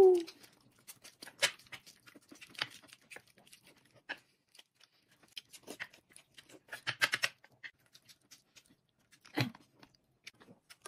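Close, sparse eating sounds of someone chewing a dumpling: wet mouth clicks and smacks, with light taps of chopsticks on a plate and a quick run of smacks about seven seconds in.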